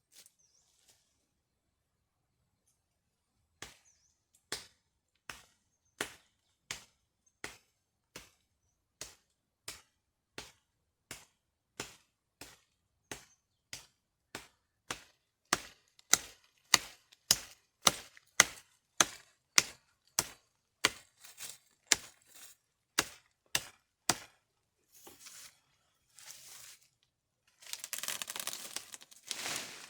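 Steady chopping with a blade, sharp strikes about every three-quarters of a second that quicken to about two a second midway and stop a little after two-thirds of the way through. Near the end come a few seconds of scraping, rustling noise.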